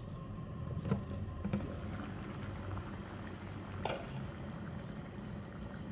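Pot of water at a rolling boil, bubbling steadily, with a few light clicks about a second in and near four seconds.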